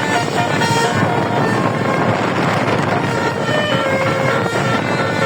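A bus's 12-trumpet telolet horn sounding scattered short melodic notes at several pitches over a loud, steady rush of noise.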